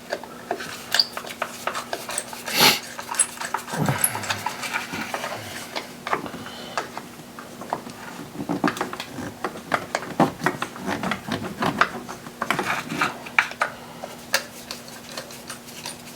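Irregular clicks, clinks and knocks of hand tools on metal as the 10mm bolts holding the secondary air pump are worked loose, with a faint steady hum.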